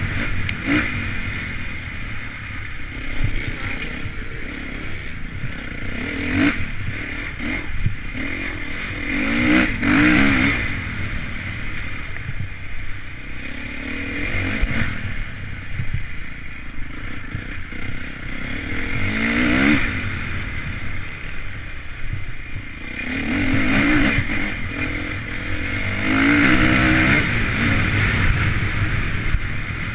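Honda CRF450 motocross bike's single-cylinder four-stroke engine being ridden hard, revving up and easing off again and again, its pitch climbing in sweeps several times, heard from the rider's helmet camera.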